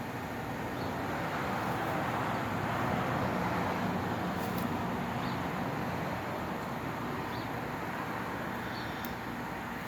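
1994 Lennox Elite Series 5-ton heat pump running in its defrost cycle: a steady rushing noise over a faint low hum, swelling a little a few seconds in and then easing.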